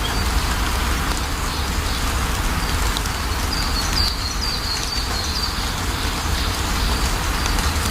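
Steady rain falling over a low rumble, with a bird giving short, high chirps, busiest about three to five seconds in.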